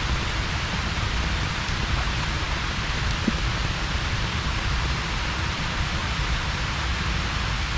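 A steady, even rain-like hiss with no distinct events in it.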